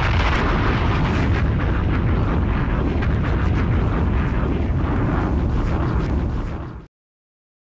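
A loud, steady rumbling noise of the kind used for an explosion or eruption sound effect, with no music or voice. It fades and cuts off a little before the end.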